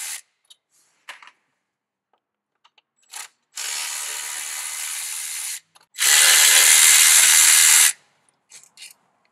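Snap-on cordless electric ratchet with a 30 Torx bit running in two bursts of about two seconds each, the second louder, backing out the bolts that hold a throttle body to a plastic intake manifold. A few light clicks between the runs.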